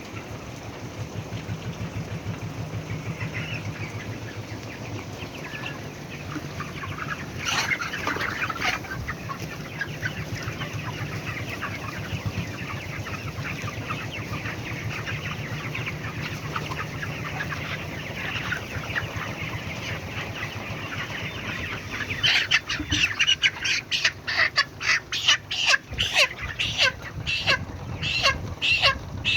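A flock of 33-day-old poultry chicks chattering and cheeping together over a steady low hum. Near the end, louder, sharp calls come in quick succession.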